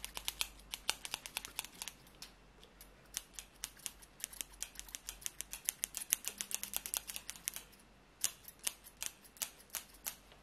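Two pairs of barber scissors snipping rapidly in the air, a quick run of crisp blade clicks with a short lull about eight seconds in.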